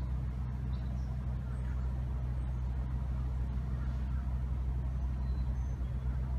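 An engine running steadily at a constant speed, a low, even hum that does not rise or fall.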